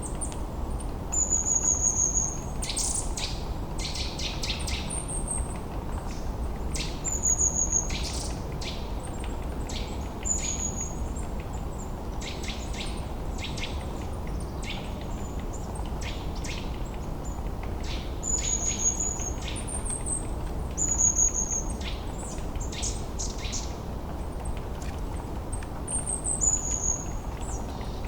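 Wild birds calling repeatedly: short high whistled notes and quick chirping trills every second or two, over a steady rushing of river water.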